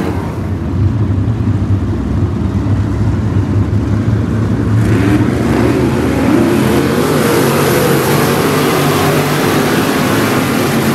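A field of 305 sprint cars' V8 engines running around the track together, growing louder and brighter from about five seconds in as the cars come past.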